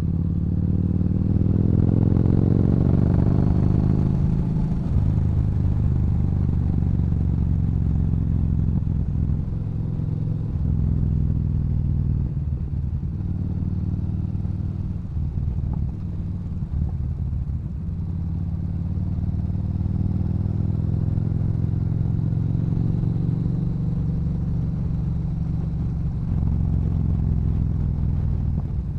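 Yamaha Bolt's air-cooled V-twin running through a Cobra exhaust under way. The engine pitch rises over the first three seconds of acceleration and drops after a gear change about four seconds in, then holds at a steady cruise with small throttle changes.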